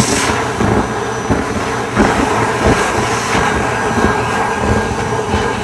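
Build-A-Bear stuffing machine running with its pedal held down, blowing fiberfill through the nozzle into a plush toy: a steady, loud airy rush.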